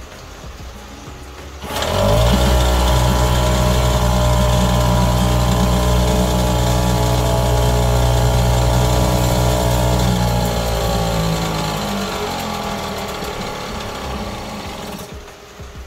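Tanaka 175 small two-stroke outboard motor running. About two seconds in the throttle is opened sharply and it holds high revs. From about ten seconds in the revs sink and the sound fades back to a quiet idle near the end.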